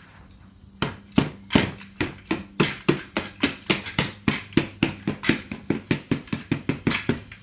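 Rapid hammering with a small hammer, about three to four blows a second, starting about a second in. It is knocking a plate into place on a toy car's wheel.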